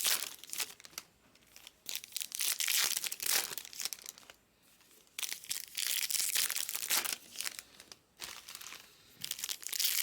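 Plastic wrapping crinkling and rustling as it is handled, in several bursts of a second or more with short pauses between.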